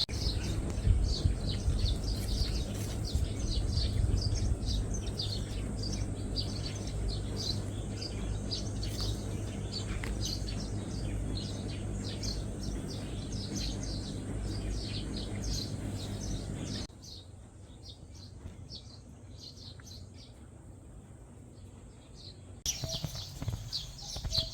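Small birds chirping with many short, high calls over a steady low rumble. About seventeen seconds in, the sound drops to a quieter stretch with few calls, and the chirping comes back near the end.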